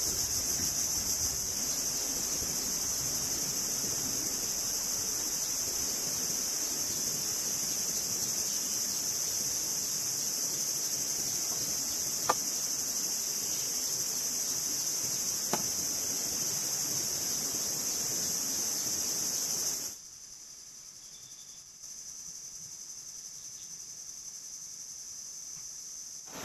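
Steady high-pitched chorus of forest insects such as crickets or cicadas over a low, even hiss, with two sharp clicks. About twenty seconds in it drops suddenly to a much quieter level.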